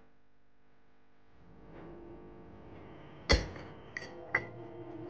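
A glass jar lid is handled against the jar: one sharp clink a little over three seconds in, then two lighter clinks, the last with a short glassy ring. Soft background music runs underneath.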